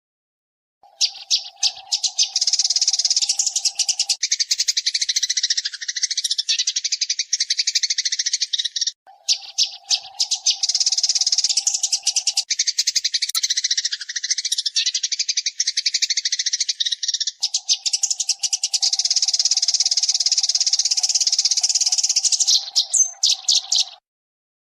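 Eurasian tree sparrows chattering, a dense, rapid stream of sharp chirps. The same stretch of about eight seconds repeats three times, starting about a second in and cutting off just before the end. A steady low hum runs under the first few seconds of each repeat.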